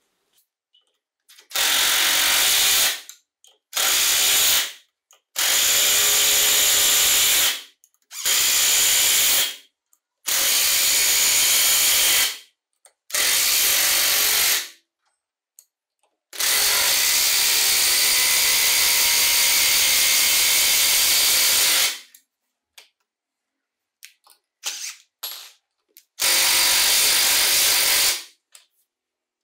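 DeWalt DW052 12V cordless impact driver driving long screws into a wooden log, running in repeated bursts of one to a few seconds with short pauses between them. The longest run is about five seconds, near the middle, and there are a few small clicks shortly before the last burst.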